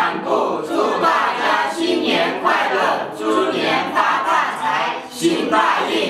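A group of about nine men and women singing together in unison, unaccompanied, in loud syllables about every half second.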